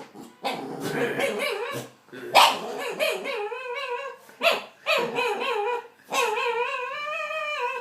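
Pet dog making strange vocal noises: several drawn-out, wavering, warbling whine-growls broken by short sharp yelps. It is a nervous reaction to being stared at.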